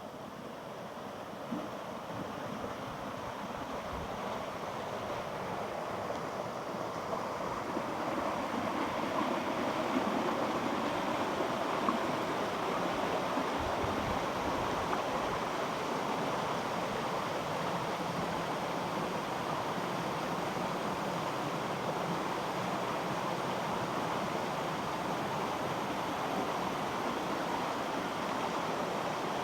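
Rushing mountain water, a steady hiss that grows louder over the first ten seconds and then holds even.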